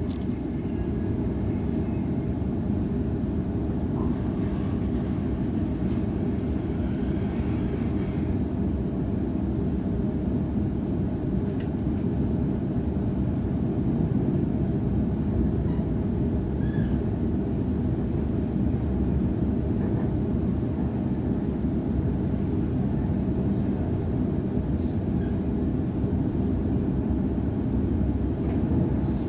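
Cabin noise inside a Waratah double-deck electric train running at speed: a steady low rumble of wheels on rail and running gear.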